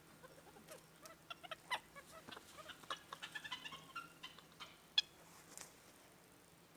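A flurry of short, high-pitched animal calls coming in quick irregular bursts, with one sharper call about five seconds in.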